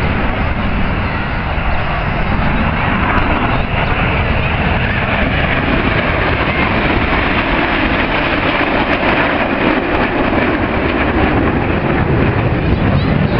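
Jet engine noise from the Red Arrows' BAE Hawk T1 jets: a loud, steady rushing rumble that holds for the whole stretch.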